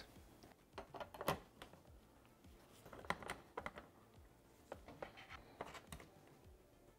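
Faint, scattered clicks and light taps of small bolt hardware being fitted by hand: M6 bolts, nuts and a washer plate against a polycarbonate window panel. The clicks come in a few small clusters, about a second in, three seconds in and five to six seconds in.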